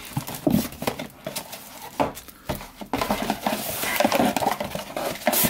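Cardboard box and packaging being handled during an unboxing: irregular taps, knocks and rustles of cardboard, paper and a plastic wrapping bag, busier in the second half.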